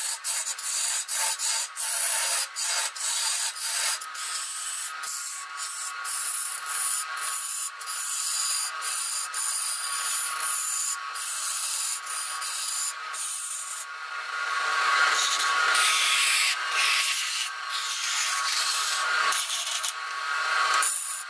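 Turning tool scraping and cutting a wood blank spinning on a lathe: a steady hissing scrape with many brief breaks through the first half, growing louder and fuller about two-thirds of the way in.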